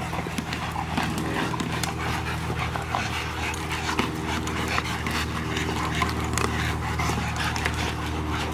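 Young Rottweilers panting hard as they play rough, with many short scuffs and clicks from their scrambling, over a steady low hum.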